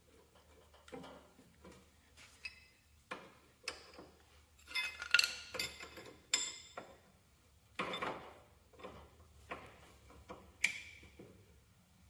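Wrench and metal hydraulic coupler fitting clinking and tapping irregularly as the fitting is worked into its mount, a few of the clinks ringing briefly.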